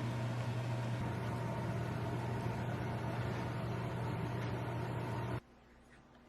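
A steady appliance hum with a strong low tone and a hiss of noise above it, cutting off suddenly about five seconds in.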